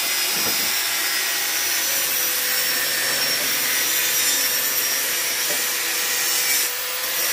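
Steady rasping noise of a tool at work, with a faint steady tone under it; the sound changes character near the end.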